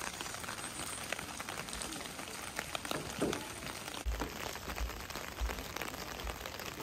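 Steady rain falling, an even hiss dotted with many small drop hits. About four seconds in, the sound changes suddenly and low thumps join it.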